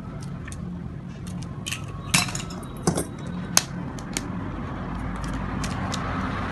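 Raw eggs tapped and cracked against the rim of a metal mixing bowl: a string of sharp taps and clicks, the loudest about two to four seconds in, over a steady low hum.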